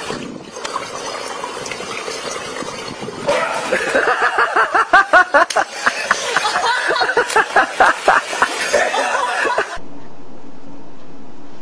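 Pool water sloshing, then a person laughing hard in a long run of quick repeated ha's. Near the end the sound cuts to a steady low room hum.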